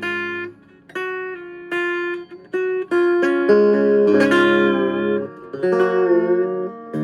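Solo guitar played clean: single picked notes a second or less apart, then fuller ringing notes from about four seconds in with a wavering pitch.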